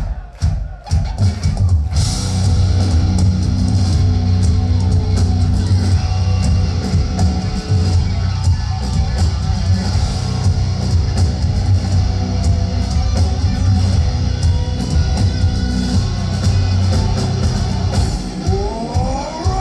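Heavy metal band playing live: a few separate drum hits, then about two seconds in the full band comes in with distorted guitars, bass and drums and plays on at full volume.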